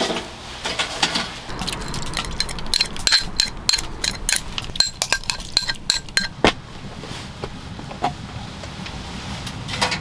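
A utensil clinking against a small glass container as rice is tipped and scraped out into a metal mess tin: a quick run of light, ringing taps that thins out to a few single clicks after about six seconds.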